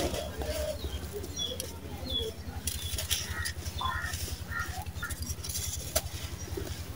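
Dry sand-cement lumps crushed and crumbled in bare hands: gritty crunching and crackling as the chunks break and sand runs through the fingers, with one sharp crack about six seconds in.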